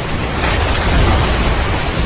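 Thunder rumbling over steady heavy rain, swelling about half a second in and easing off toward the end.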